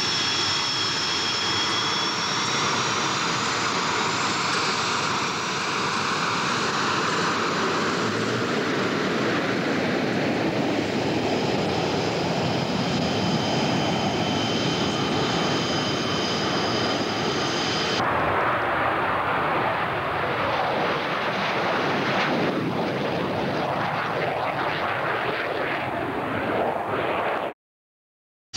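MiG-21 jet engines running loud and steady, with a high whine over the noise. The whine stops abruptly about two-thirds of the way through, leaving a rougher broad jet roar. The sound cuts out completely for about a second near the end.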